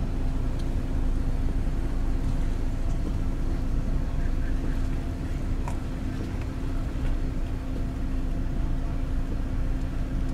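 An engine running steadily at a constant speed, a low hum with one even tone and a rumble beneath it. A faint click comes a little past halfway.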